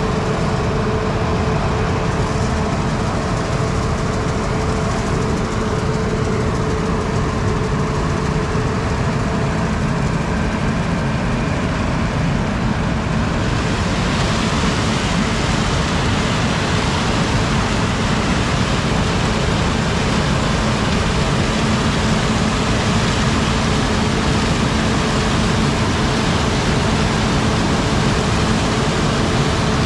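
Heavy John Deere harvest machinery's diesel engine running steadily under load. About 13 seconds in, a steady hiss joins it and carries on.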